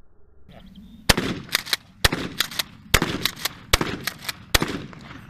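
Remington 870 Express Super Magnum 12-gauge pump-action shotgun fired five times in quick succession, about a shot a second, starting about a second in. Quieter clacks between the shots come from the pump being worked.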